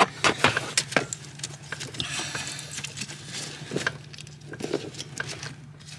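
Scattered light clicks and taps of small metal parts being handled as a retaining clip is fitted to the clutch master cylinder pushrod at the pedal, over a steady low hum.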